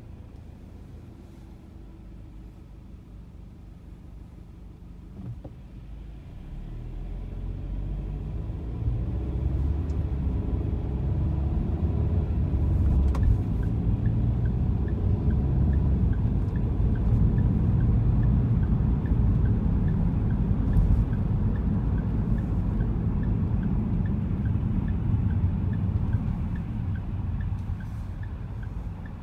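Car pulling away from a stop: low engine and road rumble that builds over a few seconds, then a steady driving rumble that eases off near the end.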